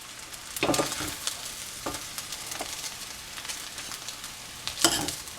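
Hot pan of fried rice still sizzling with a steady hiss after the burner has been switched off. A utensil knocks and scrapes against the pan a few times, loudest near the end.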